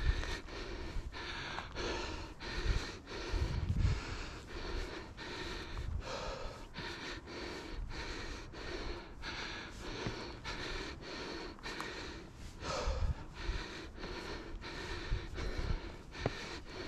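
A hiker breathing hard through a face mask while climbing steep stairs, in a quick, even rhythm of heavy in-and-out breaths, with a few low thumps.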